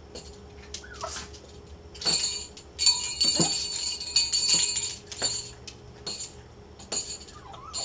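Pomeranian moving about, a bright metallic jingle, as of her collar tags, rising for a few seconds about two seconds in. A few short whines fall in pitch, shortly before she starts to howl.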